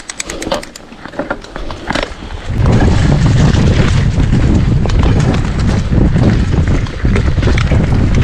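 Riding noise from a hardtail mountain bike on dirt singletrack: a steady low rumble of tyres and wind buffeting the camera microphone, which jumps louder about two and a half seconds in. Before that, scattered light clicks and rattles.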